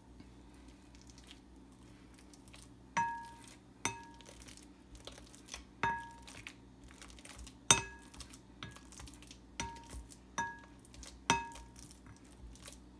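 A masher mashing ripe bananas in a bowl. It knocks against the bowl about eight times at an uneven pace, and each knock gives a short ringing clink.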